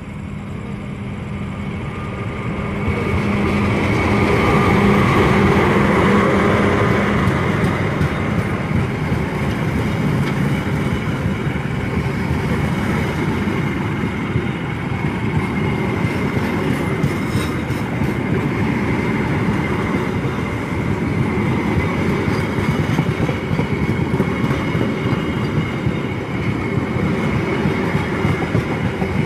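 Loud, steady rumble of heavy railway machinery with a thin steady whine running through it, growing louder over the first few seconds and then holding.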